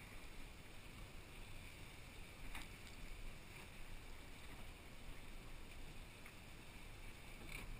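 Faint steady noise of a boat moving slowly, its outboard motors running low with water washing along the hull.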